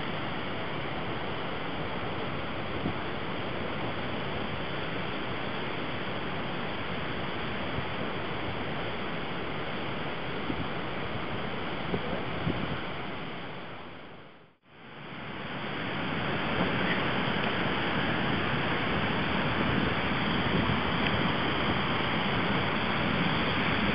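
River in flood, rushing and churning as it pours over a flood-control weir: a steady rush of water. About halfway through, the sound fades out for a moment and comes back louder.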